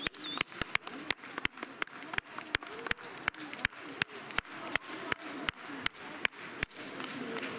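Rhythmic clapping in time, about three claps a second, over the murmur of a crowd. The clapping stops near the end.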